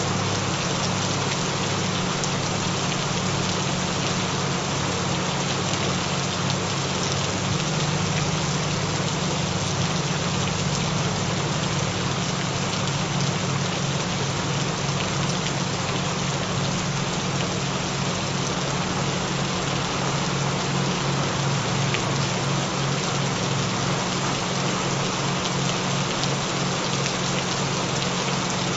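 Steady rain falling, an even patter with no breaks. Underneath it runs a low, steady hum of several layered tones that flicker slightly: the binaural-beat frequencies mixed into the rain track.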